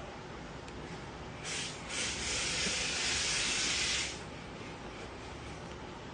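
A hiss: a short burst about a second and a half in, then a steady hiss of about two seconds that cuts off.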